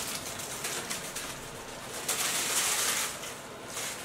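A West Highland White Terrier puppy scrambling about on a hardwood floor: scratchy, rustling noise, with a louder burst lasting about a second partway through.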